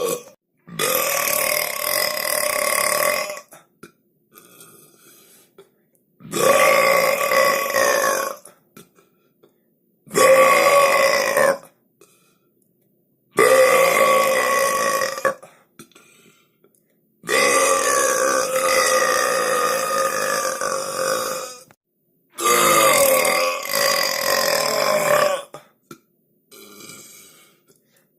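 Six long human burps in a row, each held at a fairly steady pitch for about two to four and a half seconds, with short near-silent gaps between them. The fifth is the longest.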